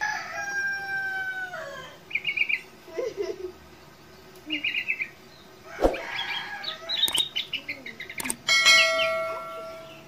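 Caged sooty-headed bulbul singing in short, varied trilled phrases, with a sharp knock about six seconds in. Two longer crow-like calls stand out, one falling in pitch at the start and a louder, steady one near the end.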